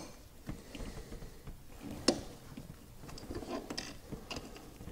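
Ratchet with a 7 mm socket and an end wrench tightening the nut-and-bolt fasteners of a new MAP sensor. Faint, irregular metal clicks and taps, with one sharper click about two seconds in.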